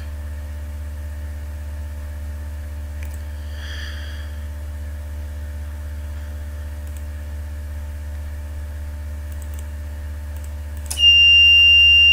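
Steady low electrical hum. About 11 seconds in, the training panel's buzzer starts a loud, steady, high-pitched beep as its output is switched on over Modbus.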